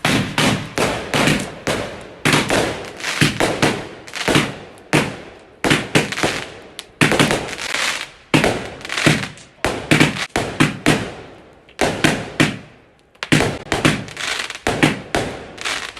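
Fireworks going off in a rapid run of sharp bangs, about two a second, each fading quickly, with a short lull about three-quarters of the way through.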